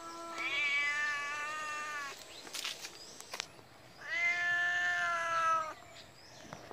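Domestic cat giving two long, drawn-out meows about two seconds apart, with a few faint clicks in between.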